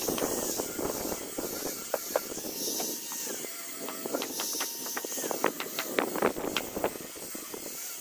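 Corded handheld electric power tool working the surface of a timber beam, throwing off wood dust. Its motor whine steps down and back up as it bites into the wood, with many sharp knocks and clicks that come thicker in the second half.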